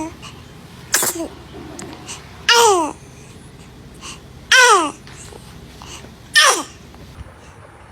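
A baby sneezing four times, about every two seconds. Each is a short, sudden burst, most carrying a high-pitched voiced squeak that falls in pitch.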